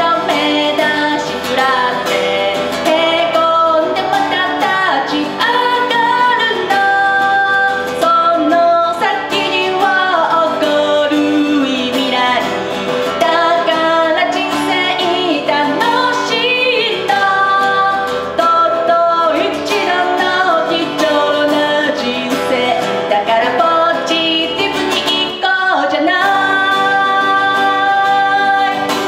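A woman singing a song live into a microphone, accompanying herself on an acoustic guitar.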